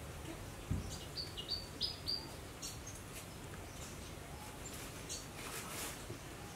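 Small bird chirping in the background: a quick run of short, high chirps in the first few seconds and one more later. A low, soft thump comes just under a second in.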